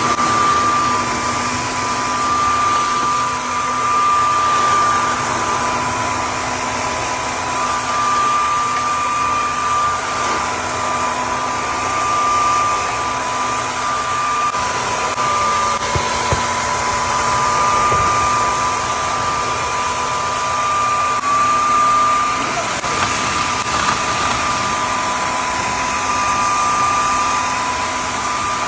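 Eureka vacuum cleaner running steadily with a high whine, sucking up dry spills of tea, baking soda and oatmeal, with the pitch wavering slightly and a few faint clicks of debris going up the nozzle.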